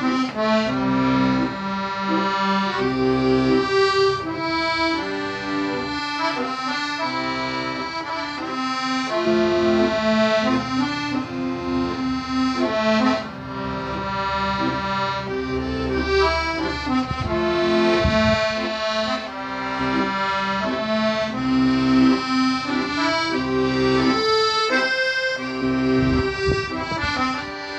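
Instrumental background music: a slow melody of held notes over chords.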